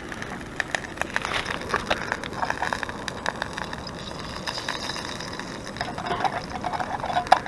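Butter sizzling in a frying pan on a camp stove as it melts: a steady hiss with frequent small pops and crackles, and a sharper crack near the end.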